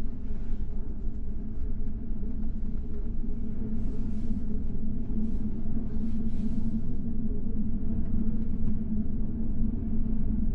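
A steady low rumble, with a few brief hissy puffs about four to seven seconds in.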